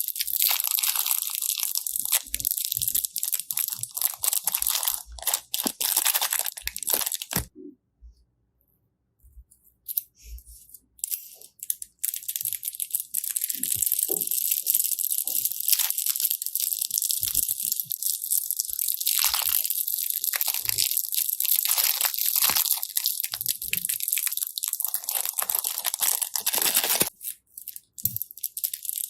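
Slime being pressed and squeezed by hand, giving a dense, fine crackling that stops for a few seconds about a quarter of the way in and then resumes.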